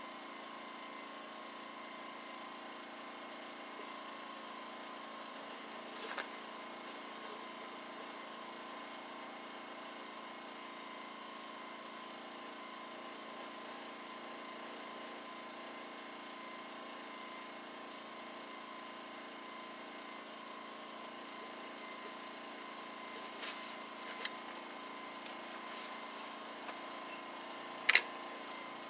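Steady faint background hum with a thin steady tone, broken by a few light clicks and one sharp knock near the end.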